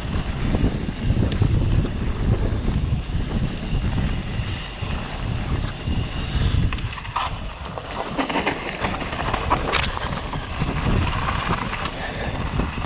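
Wind buffeting the microphone of a camera riding a downhill mountain bike, a dense low rumble. From about seven seconds in it is mixed with sharp rattles and knocks from the bike over rough ground.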